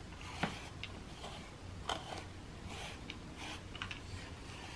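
A grooming brush stroking through a cat's fur in soft, repeated swishes about once a second, with a few light clicks in between.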